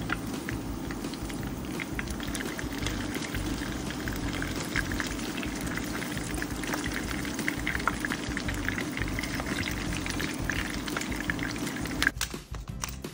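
Tortilla wraps sizzling in hot oil in a frying pan: a steady crackle with many small pops, breaking off abruptly about twelve seconds in.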